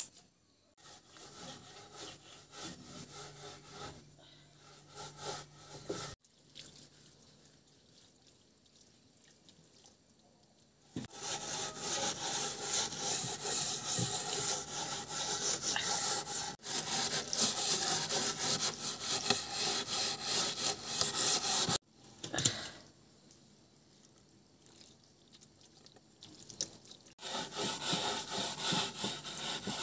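Wet wooden boards being scrubbed by hand, a fast, even run of scrubbing strokes. The strokes come in loud stretches with a pause of a few seconds between them.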